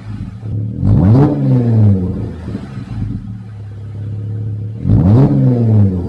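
Jeep Wrangler JL engine blipped twice from idle, about a second in and again about five seconds in, each rev rising sharply and falling back to a steady idle.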